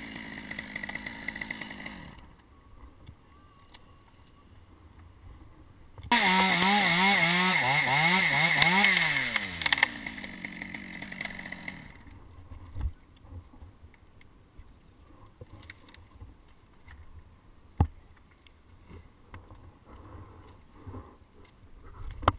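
Stihl top-handle chainsaw running briefly, then after a quiet few seconds revved hard for about three seconds, its pitch wavering and dipping as it cuts through a pine branch, before falling back to idle and fading. A few sharp knocks follow in the quiet that comes after.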